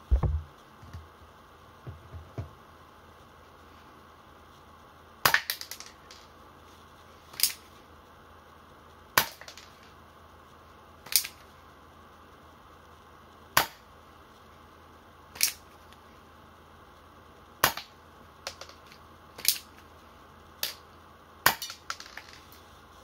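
Tokyo Marui SAA .45 Artillery gas airsoft revolver test-fired through a chronograph: nine sharp cracks, about one every two seconds, starting about five seconds in, with lighter clicks of the hammer and cylinder between some shots. A dull thump comes at the very start.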